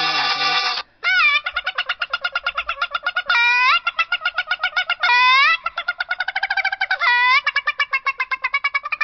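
A novelty phone ringtone starts about a second in: looped downward-swooping calls roughly every two seconds, with a rapid warbling trill of about ten pulses a second between them.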